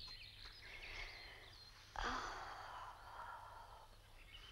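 Faint birds chirping in woodland, with a soft rush of sound about two seconds in that fades over a second or so.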